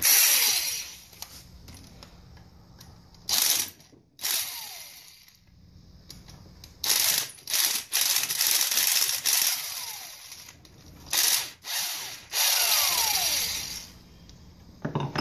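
Power drill with a 5 mm Allen bit backing out the bolts of the cam-chain guide on an ATV engine case. It runs in a string of short and longer bursts, and after several of them the motor's whine falls away as it spins down.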